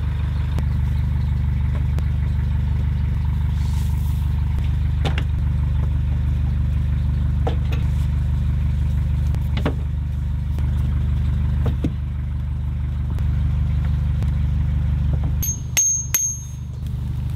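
Narrowboat diesel engine idling with a steady low throb. Over it a hammer knocks on a steel mooring pin every two seconds or so, and a few sharp, ringing metal clanks come near the end.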